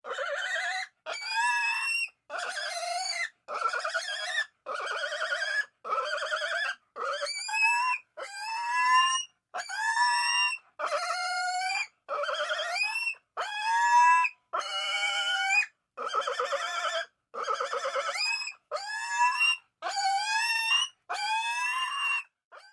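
Pig squealing in a long series of high-pitched calls, each about a second long and often rising in pitch, repeated with short breaks between them.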